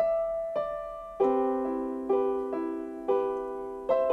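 Electric keyboard playing a slow piano intro: a chord struck about once a second, each one ringing out and fading before the next.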